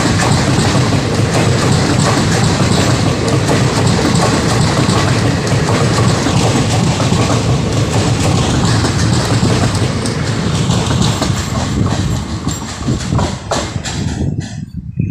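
Coaches of a passenger express train rolling past at speed: a loud, steady rumble of wheels on rails with a clickety-clack over the rail joints. The noise drops away sharply near the end as the last coach passes and recedes.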